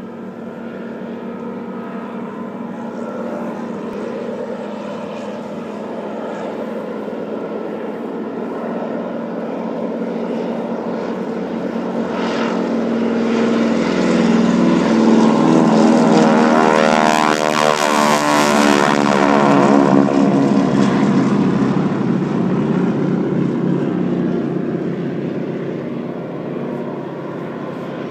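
A formation of North American T-6 Texans taking off, their nine-cylinder Pratt & Whitney R-1340 radial engines at full power. The sound grows louder, peaks as the planes pass about two-thirds of the way through with the engine pitch dropping, then fades.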